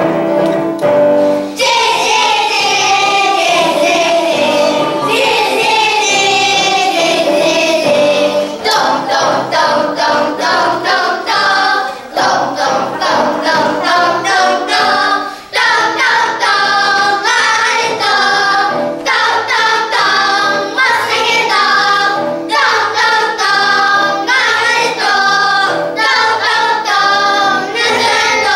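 A group of young children singing a song together, as a choir.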